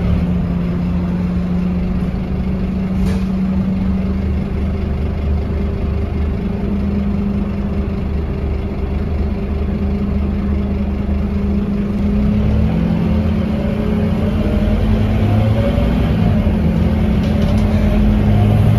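Diesel engine of a Scania K230UB single-deck bus running steadily, then building revs about twelve seconds in, with its pitch rising as the bus accelerates.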